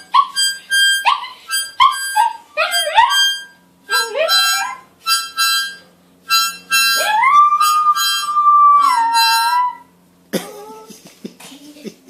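Harmonica blown in short chords while a dog howls along with it in rising, wavering cries. About seven seconds in comes one long howl that dips in pitch before it ends. Near the end the harmonica stops and the dog gives a few brief whining cries.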